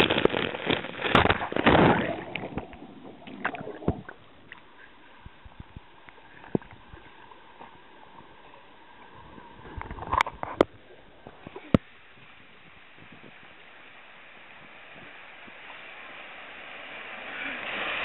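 Pool water sloshing and gurgling around a camera at the surface: a loud churning rush of bubbles for the first two seconds, then quiet lapping with occasional clicks and ticks. A rush of water swells steadily toward the end.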